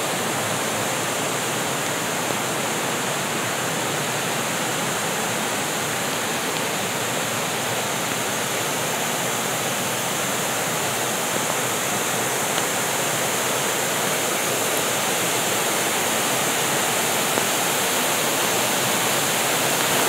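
Steady rushing of water from small waterfall cascades pouring over rock ledges into a pool, growing slightly louder near the end.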